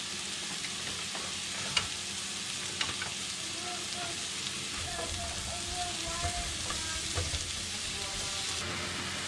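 Sliced mushrooms sizzling steadily in butter and olive oil in a nonstick skillet over medium-high heat, with a few light clicks and a spatula stirring them near the end.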